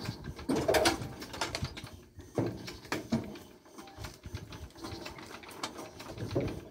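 Irregular metal knocks, clanks and rattles from men handling a small farm tractor's engine by hand, with a few louder knocks among fainter clicking.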